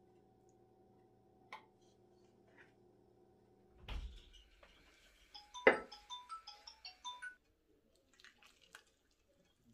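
Steady low hum with a few soft clicks, then a low thump and a quick run of short chiming notes, an edit transition sound effect with one sharp click at its loudest; faint metallic clinks follow near the end.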